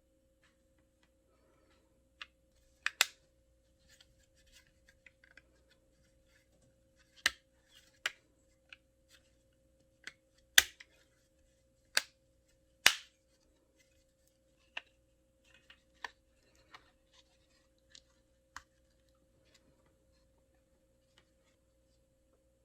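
Irregular sharp clicks and taps of small hard parts being handled and set down, a few much louder than the rest, over a faint steady hum.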